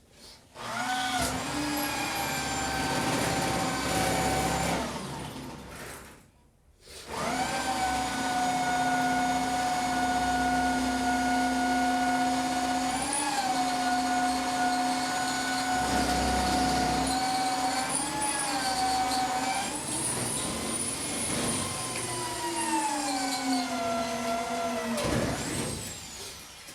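Electric power tool motor running at a steady high whine, switched on twice, with brief dips in pitch as it takes load, then winding down with a falling pitch near the end.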